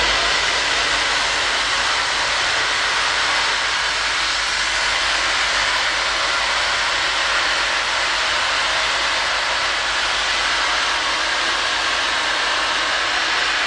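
BR Standard Class 7 steam locomotive 70000 Britannia letting off steam: a loud, steady hiss that does not change.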